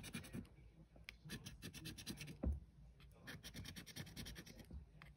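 Scratchcard being scraped with a small hand-held scratcher tool, the coating rasping off in quick strokes that come in several short bursts with pauses between them. A single louder knock comes about halfway through.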